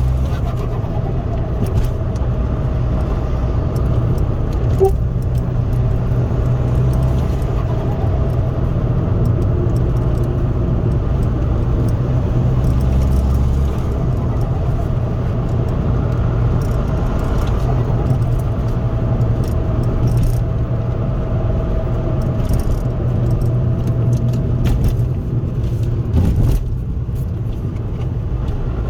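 Ford Focus 1.8 TDCi four-cylinder turbodiesel heard from inside the cabin while driving: a steady low engine drone mixed with road noise. The sound dips briefly near the end.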